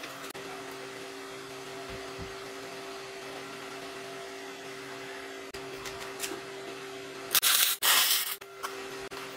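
A steady machine hum with two steady tones, then, near the end, about a second of loud electric arc welding crackle in two short spurts, a tack weld.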